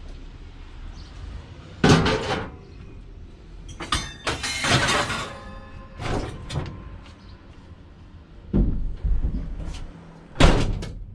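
A series of knocks and clatters from scrap metal being handled, with about five separate bangs. The loudest come about two seconds in and near the end, and one in the middle rings briefly.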